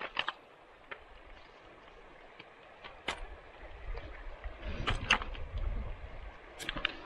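Faint handling noises: a few light clicks and knocks spaced a second or two apart, with a low rumble coming in during the second half.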